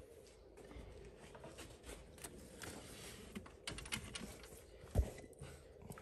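Faint, irregular small clicks and taps of spark plugs and hand tools being handled and fitted in an engine bay, with one dull thump about five seconds in.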